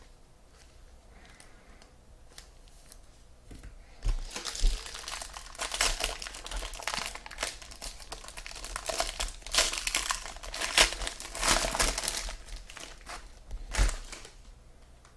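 Plastic wrapper on a trading-card pack being torn open and crinkled. It starts about four seconds in and keeps crackling for about ten seconds, with a sharp snap near the end.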